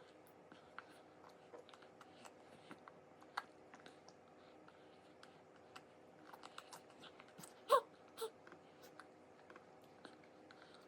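A toddler eating quietly: small scattered clicks and taps of a spoon and dishes with soft chewing. A brief toddler's vocal sound about three-quarters of the way through.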